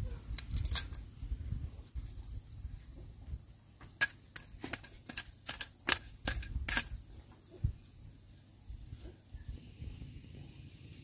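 Steady high-pitched insect drone, with a quick run of about eight sharp clicks or snaps near the middle.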